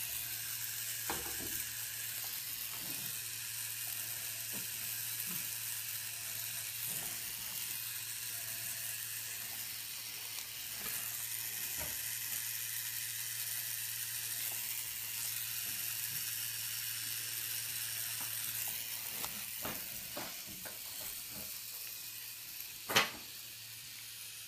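Pen-style rotary tattoo machine running against the skin, a steady low hum under a high hiss. The hum drops away a few seconds before the end, and a single sharp click comes near the end.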